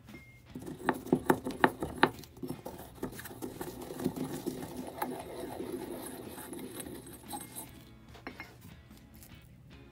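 Ceramic pestle grinding blue pigment powder in a ceramic mortar: a quick run of sharp taps about a second in, then steady circular scraping that grows softer near the end.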